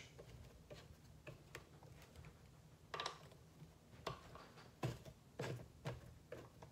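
Faint, scattered light ticks and clicks of a T-handle Allen key working loose the axle bolts of a Onewheel XR, about five of them in the second half.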